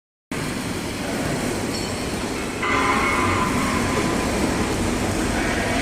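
CNC tube laser cutting machine running: a steady mechanical noise that gets louder about two and a half seconds in, when a whine joins it.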